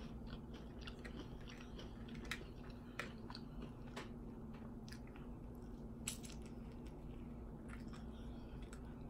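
Close-up eating sounds: biting and chewing a red hot sausage in a soft bun, with wet mouth smacks and clicks about once a second, the sharpest about six seconds in.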